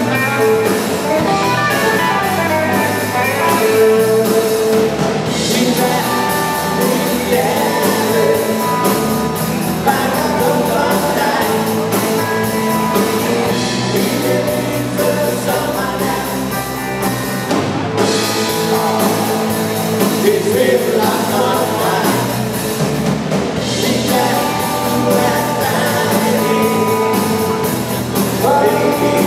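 Live rock band playing: electric guitars, bass and drum kit keeping a steady beat, with a singer's voice over them.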